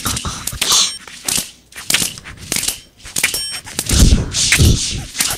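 Sharp percussive hits and clanging, some leaving a brief high metallic ring, with a cluster of heavy low thuds about four seconds in.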